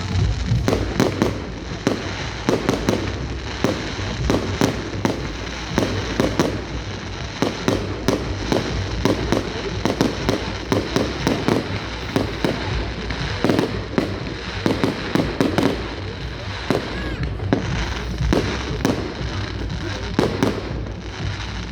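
Fireworks display: a dense, unbroken barrage of bangs, several a second and overlapping, over a steady low rumble.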